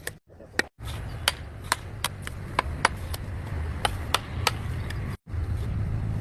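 Bricklaying work: sharp knocks, about two a second, of a trowel tapping bricks down into mortar, over a low rumble. The sound cuts out abruptly twice.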